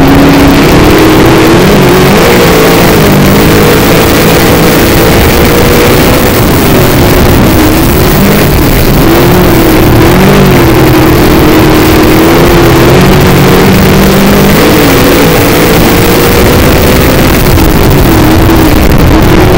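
Dirt modified race car's V8 engine at racing speed, heard loud from inside the car, its pitch rising and falling with the throttle lap after lap over heavy wind and chassis noise.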